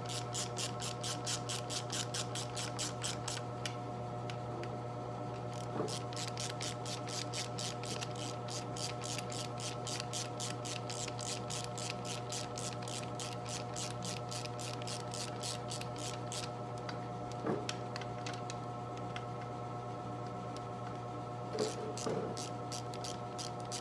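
Rapid, even ticking, about five ticks a second, over a steady electrical hum. The ticking pauses briefly about five seconds in, stops for several seconds past the middle, and starts again near the end.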